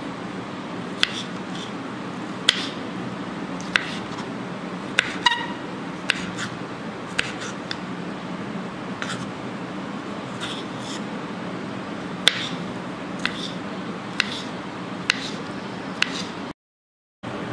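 A kitchen knife knocks on a wooden chopping board as tomatoes are cut and diced, giving sharp, separate knocks about once a second over a steady low hum. The sound drops out for a moment near the end.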